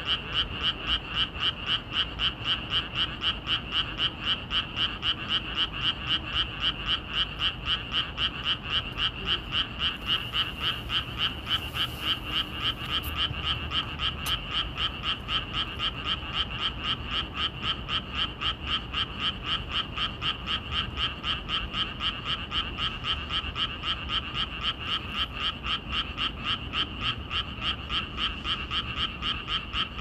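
Frogs croaking at night in a steady, even rhythm of about four calls a second.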